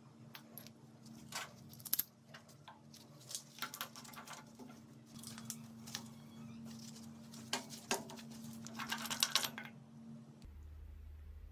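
Small metal drill parts clinking and scraping as they are handled, in irregular short clicks, over a steady low hum.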